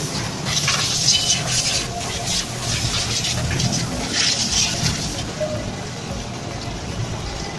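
Water spraying from a hose in short, repeated hissing bursts, stopping about five seconds in.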